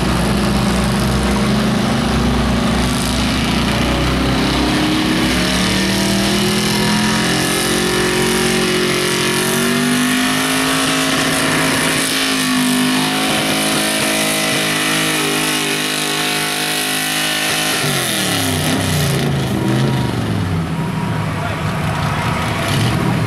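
Ford pickup's engine at full throttle pulling a weight-transfer sled, rising slowly in pitch as it works down the track, then winding down about eighteen seconds in as the throttle comes off.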